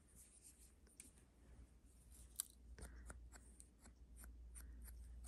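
Faint, quick dabs and scuffs of Distress ink being applied around the edges of a paper piece, about three a second, starting about two seconds in after near silence.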